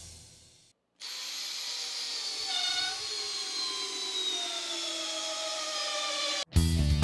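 Makita GPH01 cordless hammer drill on a 40V XGT 8 Ah battery driving a half-inch by 8-inch lag screw into stacked lumber for about five seconds. Its motor whine slowly falls in pitch as the load builds, then stops. Background music with a heavy beat cuts back in abruptly near the end.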